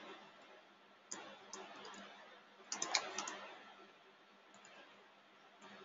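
Computer keyboard typing, faint: a few scattered keystrokes, then a quick flurry of keys about three seconds in.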